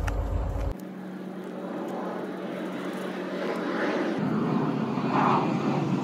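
Engine noise from something passing, growing steadily louder over several seconds. The deep rumble cuts off abruptly just under a second in.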